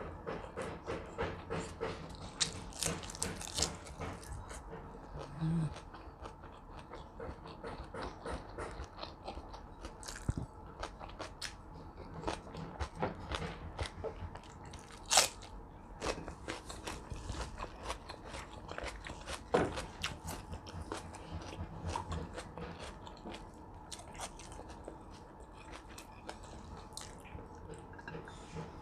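Close-miked chewing and biting of food, with small wet mouth clicks and crunches coming irregularly, and one sharper click about halfway through.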